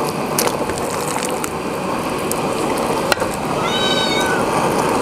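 Pickled-cabbage fish broth simmering in a wok with a steady hiss as raw fish slices are slid in. A sharp click comes about three seconds in, and a cat meows once shortly after.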